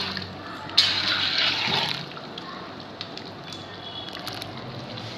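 Thick masala gravy being stirred with a ladle in a large aluminium pot: wet sloshing and scraping, loudest for about a second starting a second in, then quieter stirring with small knocks of the ladle.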